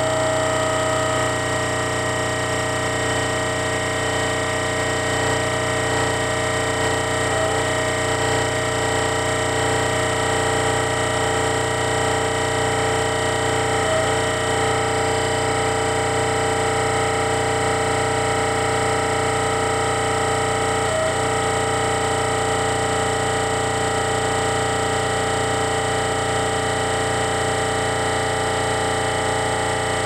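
Hitachi PA2000VH Air Punch NEXT normal/high-pressure air compressor running steadily, with a slight click roughly every seven seconds.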